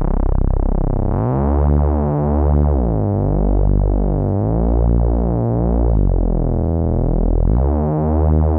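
Cherry Audio LowDown, a software emulation of Moog Taurus bass pedals, playing a few sustained low synth bass notes with glide on, so each note slides in pitch into the next.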